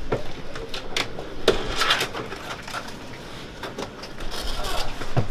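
A cardboard box being handled and opened: scattered sharp clicks and knocks, with a brief scraping rustle about two seconds in.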